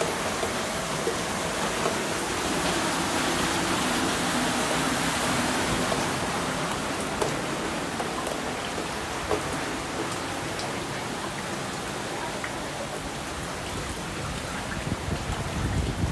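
Heavy rain falling steadily, a dense even hiss with scattered drop clicks. A low rumble and a few sharper knocks come near the end.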